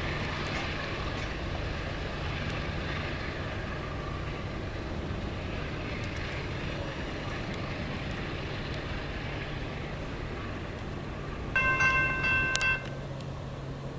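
Metro-North commuter train rolling away along the track, a steady rumble of wheels on rail. Near the end a locomotive horn sounds one short chord blast of about a second.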